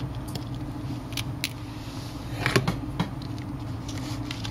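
Light clicks and taps of fingers handling a smartphone on a work mat, the loudest cluster about two and a half seconds in, over a steady low hum.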